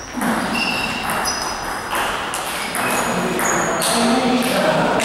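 Table tennis rally: a celluloid ball clicking off the rackets and the table in quick alternation, about every half second, each hit with a short high ping.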